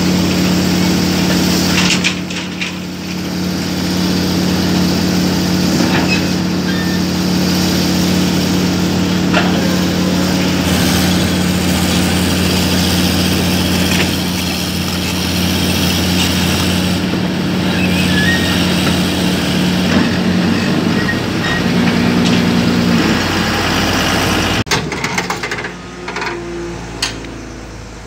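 Hydraulic excavator's diesel engine running steadily with a low, even hum. About three-quarters of the way through, the engine sound cuts off abruptly, leaving quieter, irregular knocks.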